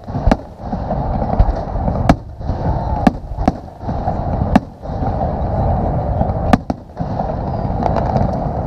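Fireworks display: aerial shells bursting with sharp bangs every second or so, six in all, two close together near the end, over a continuous low rumble of the display.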